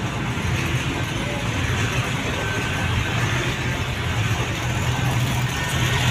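Steady din of a busy fairground, carried by a continuous low hum under a general wash of noise.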